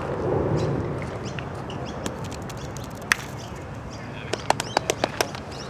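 Steel petanque boules clacking: one sharp click about three seconds in, then a quick run of about seven clicks near the end. Faint bird chirps sound in the background.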